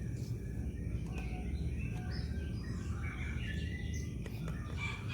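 Steady low background rumble with scattered faint, high bird chirps, more of them in the second half.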